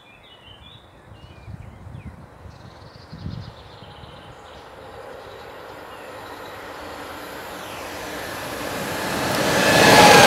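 SNCF BB 27000-class electric locomotive BB 27126 hauling a freight train of gas tank wagons, approaching on the rails and growing steadily louder until it passes close by near the end, its wheels and the tank wagons rolling by.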